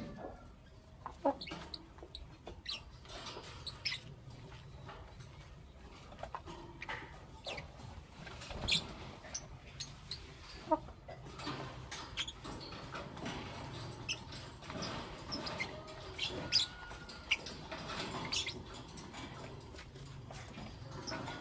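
Lovebirds giving short, sharp, squeaky chirps at irregular intervals.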